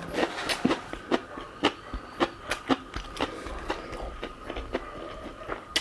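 Close-up eating sounds of a person chewing: a string of short wet clicks and smacks, roughly two a second, at an uneven pace.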